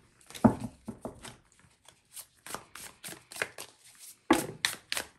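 Tarot deck being shuffled by hand: quick, irregular papery clicks and slaps of cards against each other, with a louder slap about half a second in and another just after four seconds.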